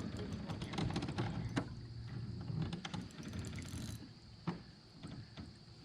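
Close handling noise as a hook is worked out of a freshly caught fish: rapid, irregular clicks and rustling. These are busiest for about the first four seconds, then thin to a few scattered clicks.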